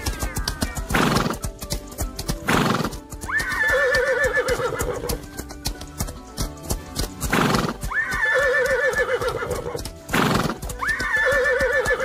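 Horse hooves galloping in a fast, even clatter, with a horse whinnying three times in a repeated, identical call, each whinny preceded by a short loud burst of noise, over background music.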